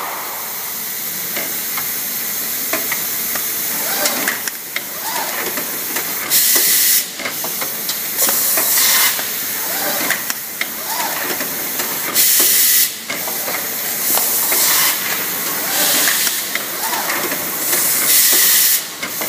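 Automated pneumatic packaging machine running: a steady hiss of compressed air under clicks and clacks of moving parts, with loud blasts of air exhaust every two to four seconds as its cylinders cycle.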